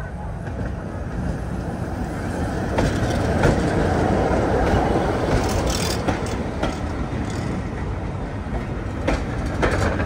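A passenger train running past close by. The rumble swells as the locomotive passes about four seconds in, then the coaches follow, their wheels clicking over the rail joints.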